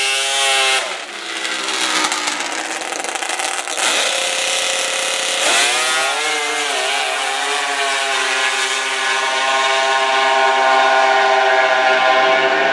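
Drag-racing snowmobile engine revving: a short rise and hold of revs at the start, then about five and a half seconds in a rising rev into the launch, settling into a loud, high, steady full-throttle note that holds to the end.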